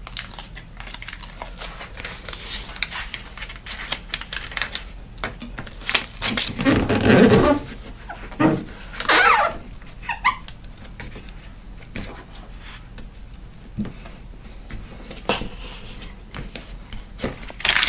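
Aluminium foil HVAC tape being peeled from its backing and rubbed down by hand over the seams of a balsa-sheeted foam model stabilizer: irregular crinkling, crackling and rustling, loudest about six to eight seconds in.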